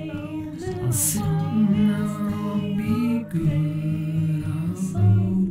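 Background music: a song with a voice singing long, held notes.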